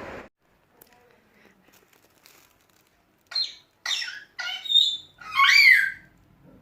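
African grey parrot calling: a run of four short squawky calls starting about three seconds in, then a longer call whose pitch rises and falls.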